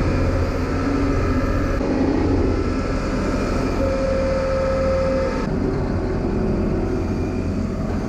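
New Holland skid steer loader's diesel engine running steadily, heard from the operator's seat as it carries a pallet of seed bags on its forks. A single steady whine rises above the engine for about a second and a half near the middle.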